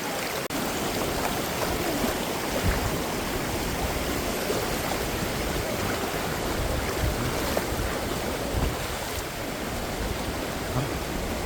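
Valley stream water rushing steadily, a continuous wash of flowing water.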